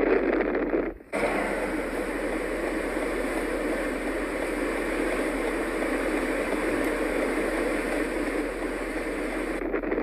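Blizzard wind rushing steadily over the microphone, with no engine note standing out. About a second in it drops out briefly, then comes back smoother and more even. Near the end it turns gritty and buffeting again.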